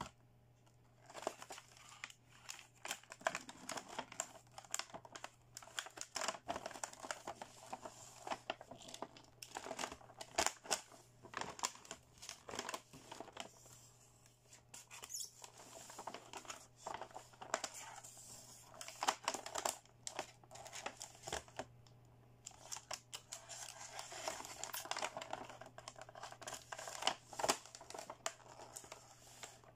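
Clear plastic wrapping crinkling and tearing as fingers and fingernails pick at it and peel it off a plastic toy beauty-set case: irregular crackles and clicks in spurts with short lulls.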